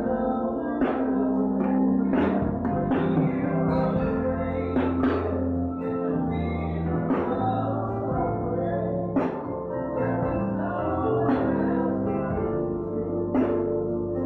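Live gospel band music: sustained keyboard chords over held bass notes, with a percussion hit every second or two.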